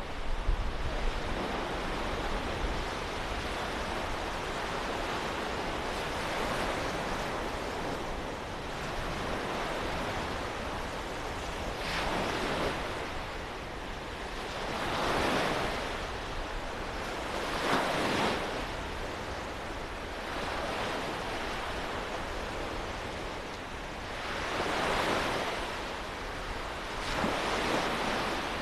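Small waves breaking on a beach, with about five louder washes of surf rising and falling over a second or two each, over a steady hiss of wind.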